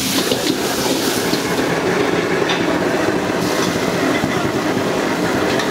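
High-output wok burner roaring like a jet engine under a wok being stir-fried, with a metal ladle clinking and scraping in the wok now and then.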